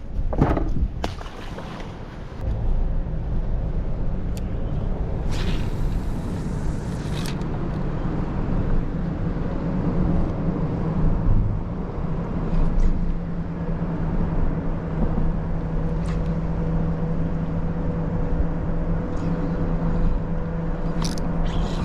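Boat engine running steadily with a low drone; its hum grows stronger about halfway through, with a few brief hissing bursts on top.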